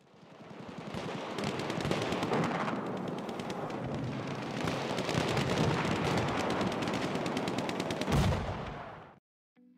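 Battle sound effect of rapid machine-gun fire and gunshots, a dense crackle of shots that fades in at the start and dies away near the end, with one louder bang about eight seconds in.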